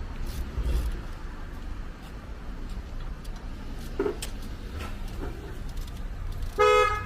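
Low rumble of a car engine, then a short car-horn toot near the end.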